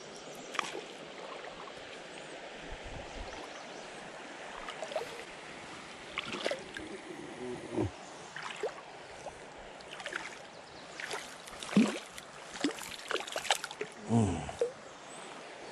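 Shallow creek running steadily over stones. In the second half come scattered splashes and knocks as a wader reaches into the water.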